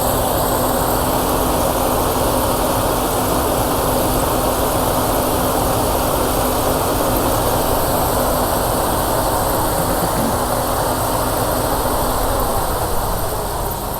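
Combine harvester running steadily while harvesting corn: a loud, even mechanical din with a faint steady hum, easing slightly near the end.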